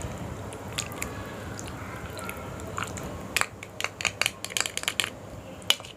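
Someone eating from a bowl of laksa: utensils clicking against the bowl, with a quick, irregular run of sharp clicks in the second half.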